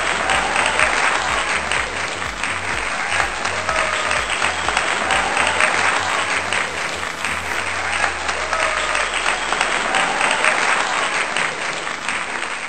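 Applause sound effect, dense clapping over background music with a low beat; the beat fades out about two-thirds of the way through while the clapping carries on.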